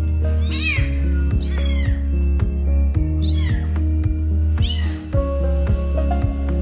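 Unweaned kittens mewing for their mother: four high-pitched cries, each rising and then falling in pitch, one to two seconds apart, over background music with a steady beat.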